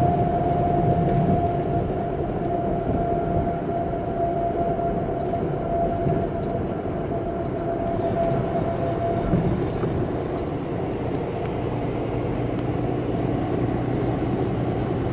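Steady road noise of a vehicle cruising on a highway, heard from inside: a low drone of tyres and engine, with a faint steady whine that fades out about nine seconds in.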